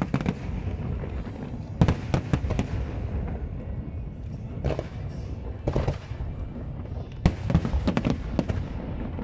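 Aerial fireworks shells bursting in a continuous low rumble. Clusters of sharp bangs come about two seconds in, again near five and six seconds, and in a dense run from about seven seconds in.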